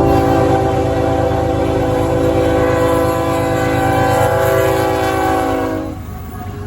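Diesel locomotive's multi-chime air horn sounding one long chord that cuts off suddenly about six seconds in, over the low rumble of the passing train.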